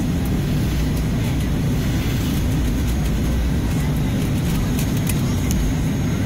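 Airliner cabin noise while taxiing before takeoff: a steady low rumble from the jet engines at low power and the airframe, with no change in level.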